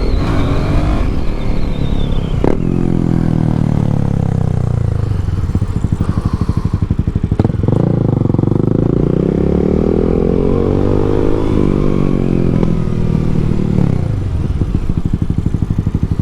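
Yamaha MT-07's parallel-twin engine running on its stock exhaust while riding. The revs fall over the first few seconds. From about seven seconds in they climb again, dip briefly, then climb once more near the end.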